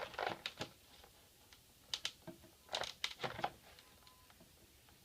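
Packaging being handled and picked at by hand, heard as short scratchy scrapes and clicks in uneven clusters while taped-up packaging is worked open.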